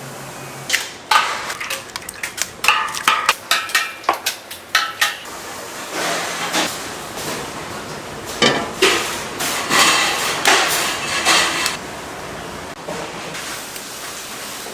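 Cooking pots, pans and utensils in a cafeteria kitchen: a quick run of sharp knocks over the first five seconds, then several seconds of clatter and scraping.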